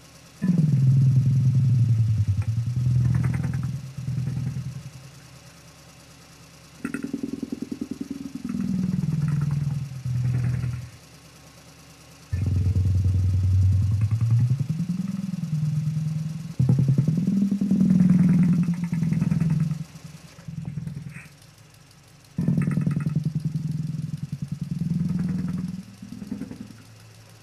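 A person imitating a truck engine with the lips, a buzzing 'brrrm', in repeated bursts of a few seconds. The pitch rises and falls within each burst, with short pauses between them.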